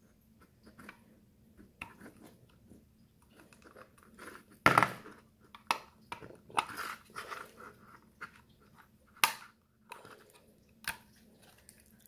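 Plastic clicks and cracks as the latches of a car door chime module's plastic case are pried open with a small pick tool, with one loud sharp crack a little under five seconds in and several smaller snaps and clicks after.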